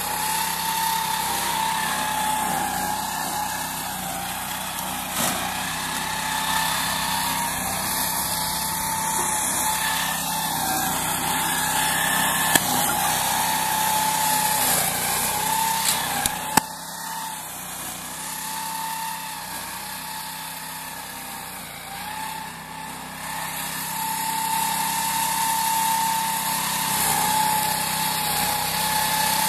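Engine of a prototype meadow-mowing machine with a chain-flail shredder running steadily, with a few sharp clicks midway and a slight drop in loudness for a few seconds.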